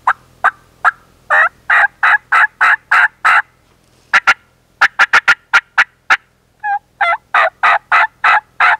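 Three-reed batwing-cut diaphragm turkey call played in the mouth, imitating a hen. It gives a few short clucks, then a string of about seven raspy yelps, a quick run of sharp cutts, and another string of about six yelps.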